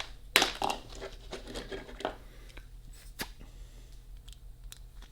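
Small plastic pneumatic plugs and fittings being handled: rustling and a quick run of sharp clicks in the first two seconds, then a few single sharp clicks.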